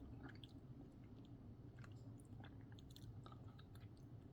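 Near silence: faint, scattered mouth clicks and lip smacks of someone tasting yogurt, over a low steady room hum.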